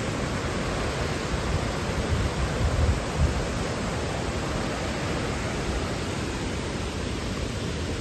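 Steady hiss of rushing water tumbling over rocks in a stream's cascades, with a few louder low rumbles about two to three seconds in.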